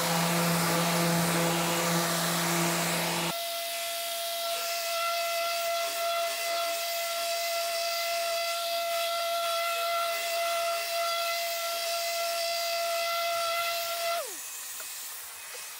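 Mirka random orbital sander with its dust extractor running on an end-grain wooden board: a steady whine with a hiss of air. About three seconds in the sound changes abruptly to a higher, thinner whine, and near the end the whine falls in pitch and dies away as the sander is switched off.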